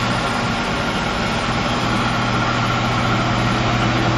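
Large Poreba PNA-80/157/4M CNC lathe running: a steady mechanical hum with a constant low drone and a thin whine held over it.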